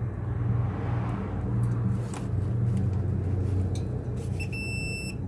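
Digital multimeter's continuity beeper sounding steadily near the end as the probes bridge two compressor terminal pins, showing the motor winding between them is continuous. Before it, a few light clicks of the probe tips on the terminals, over a low steady hum.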